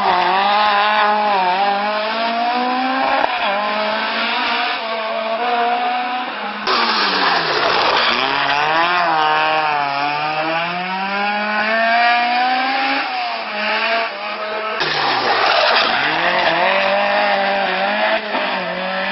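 Three rally cars in turn taking a tight hairpin, their engines revving hard. In each, the revs drop for the turn and then climb again as the car accelerates away. The sound changes abruptly from one car to the next about a third and two-thirds of the way through.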